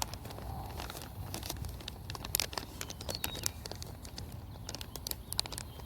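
Scattered light crinkles and small clicks of a soft-plastic fishing worm and its plastic bait bag being handled.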